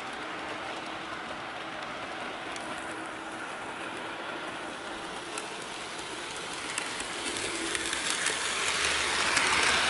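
Electric model trains running on sectional track: a steady running noise of motors and wheels with light clicks over the rail joints. It grows louder over the last few seconds as the On30-scale Thomas Kinkade Christmas Express steam locomotive comes close.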